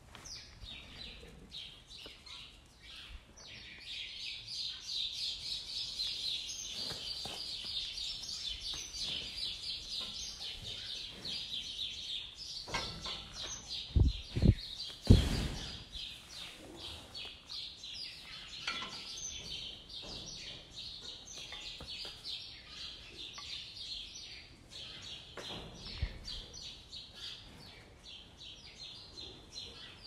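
A dense chorus of birds chirping and twittering continuously. Three dull, low thumps come in quick succession about halfway through, the loudest sounds here, and a fainter thump follows near the end.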